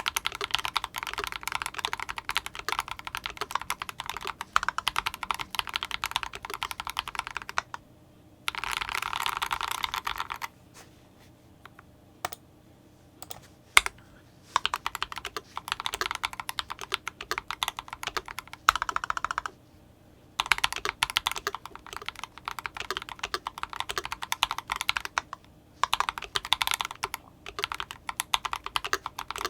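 Typing on an IDOBAO ID87 V2 mechanical keyboard with fully lubed Akko POM Silver linear switches and CMK keycaps: quick runs of keystrokes broken by short pauses, with a longer lull of only a few scattered presses about ten to fourteen seconds in.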